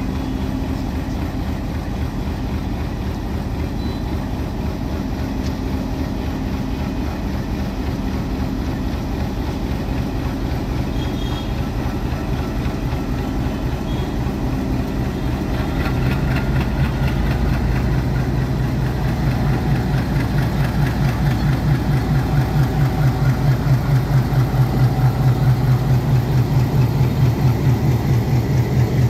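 Bangladesh Railway diesel locomotive's engine running as it pulls a passenger train out of the station. Its low engine note gets louder about halfway through and settles into a steady pulsing beat as the locomotive draws alongside.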